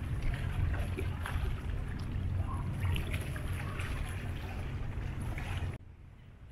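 Boat engine running with a steady low rumble, with some water noise over it; it cuts off abruptly near the end.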